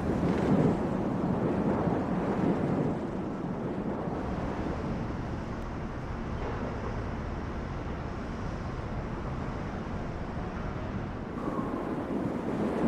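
Wind blowing: a steady rushing noise, a little stronger in the first few seconds, then settling.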